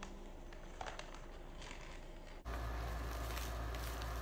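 Faint crinkling and rustling of plastic packaging as a plastic-wrapped handbag and a plastic courier pouch are handled, with scattered small crackles. About two and a half seconds in, the background hiss rises suddenly.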